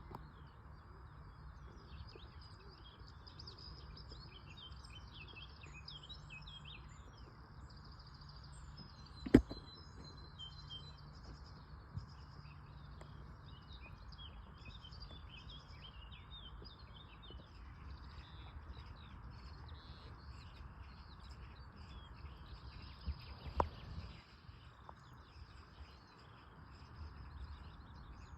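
Small birds singing and chirping continuously over a low steady rumble of wind. A single sharp knock about a third of the way in is the loudest sound, with a fainter knock near the end.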